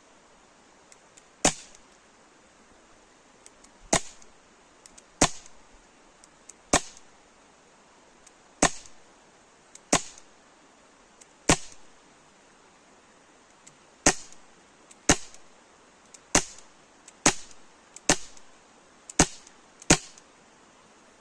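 Colt Defender CO2 BB pistol being fired, about fourteen single sharp shots with a short ring after each, spaced one to two and a half seconds apart at first and coming quicker, under a second apart, in the second half.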